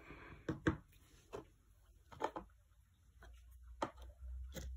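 A few scattered light taps and knocks, with a soft low rustle in the last second or so, from things being handled close to the microphone.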